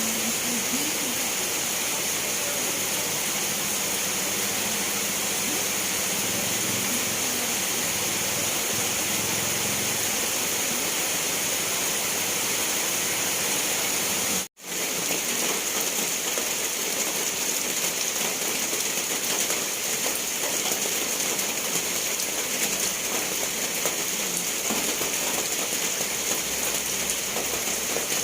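Steady, heavy rainfall, an even hiss with no breaks in the patter. Just past halfway it cuts out for an instant, then carries on as before.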